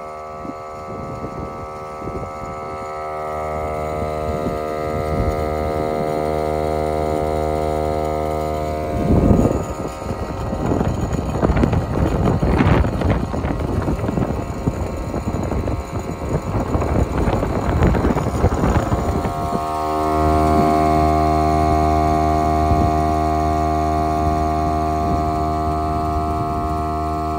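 Cordless air inflator running with a steady mechanical hum as it pumps a water-filled fire extinguisher up toward its 100 psi setting. Through the middle stretch the hum gives way to rougher, fluttering noise, then returns stronger for the last several seconds.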